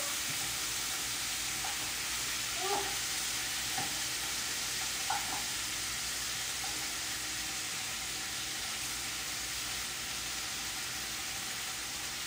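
Chicken frying in a pan, a steady sizzle, with a few light clinks of a utensil against the pan between about three and five seconds in.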